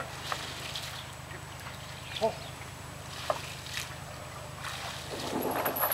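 Waterside ambience: a low steady hum with faint sloshing of water and a few small scattered knocks.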